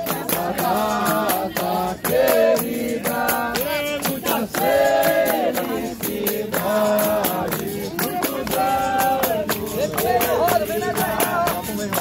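Capoeira roda music: a group singing a call-and-response chant over pandeiro tambourines and hand clapping, keeping a steady, quick rhythm.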